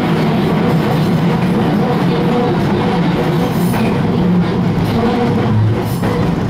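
Tokyu Toyoko Line commuter train running along elevated track, heard from inside the cab: a steady rolling noise of wheels on rail, with a few short sharp clicks from the track.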